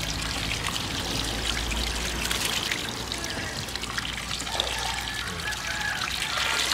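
A steady stream of water from a hose pouring and splashing into a plastic basin of water.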